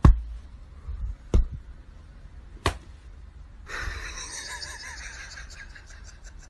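Three sharp slaps about 1.3 seconds apart, a hand patting a bamboo floor mat, then a soft hiss from a little before halfway.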